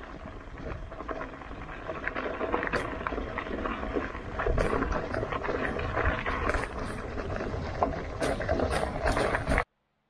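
Mountain bike rolling along a leaf-covered dirt trail: a steady rumble of tyres on the ground with many crackles and rattles. It cuts off suddenly near the end.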